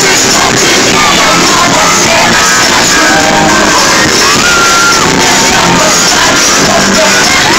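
Live pop music played loud in a large arena, with singing and a crowd shouting and screaming over it; long high screams rise and hold now and then.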